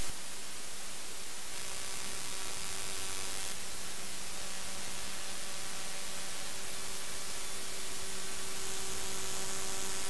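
Raw I/Q data from the Sentinel-1 satellite's 5.4 GHz C-band radar receiver, written to a 192 kHz WAV file and played as sound: a steady static-like hiss with faint steady tones under it, its texture shifting about a second and a half in, at three and a half seconds, and again near the end. The data holds interference from Russian air defence radar picked up by the satellite's receiver.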